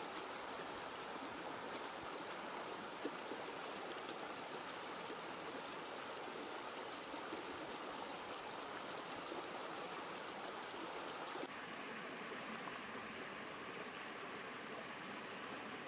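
Shallow stream running over rocks, a steady rush of water that becomes a little softer about two-thirds of the way through.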